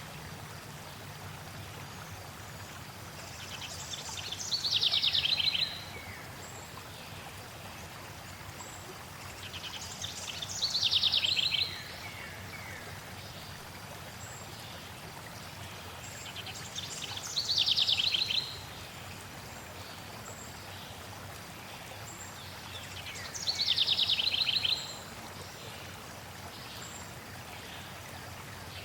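A songbird sings the same short trilled phrase, falling in pitch at the end, about every six seconds, four times in all, over the steady rush of a flowing stream.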